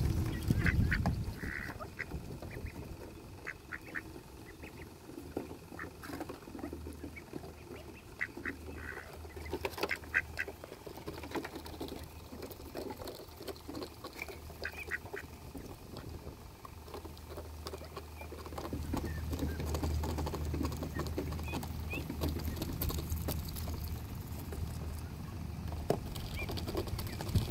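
Mallards and their ducklings feeding on seed scattered across wooden boards: bills clicking and pecking, with short quacks and calls in clusters during the first half. A low steady rumble sets in after about seven seconds and grows louder in the second half.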